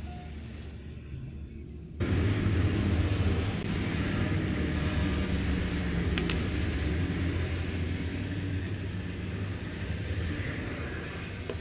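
Steady low rumble that jumps louder about two seconds in, with a few faint metallic clicks from a spanner turning a nut.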